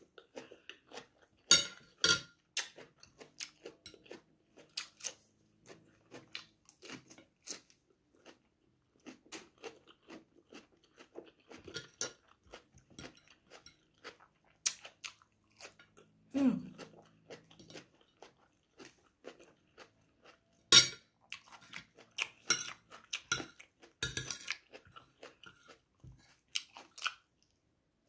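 Close-miked chewing and crunching of food, irregular and ongoing, with a few louder sharp crunches near the start and again in the last third.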